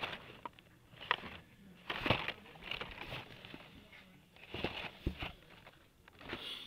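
Blister-packed Hot Wheels cars on their cardboard backing cards being flipped through by hand in a cardboard box: irregular plastic clacks and card rustles.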